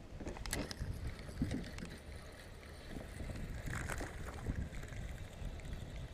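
Irregular water splashes and knocks around a kayak as a small largemouth bass is reeled in and landed, over wind rumbling on the microphone.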